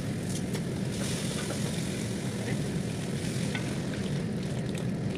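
Tomato-based chicken stew sizzling in a pot and being stirred with a wooden spatula, over a steady low rumble.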